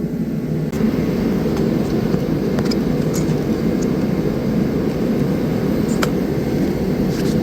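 Steady roar of a heater fan blowing, with a few faint clicks over it.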